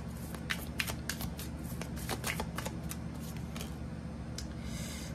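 A tarot deck being shuffled by hand: a quick run of soft card clicks and flicks that thins out after about three and a half seconds.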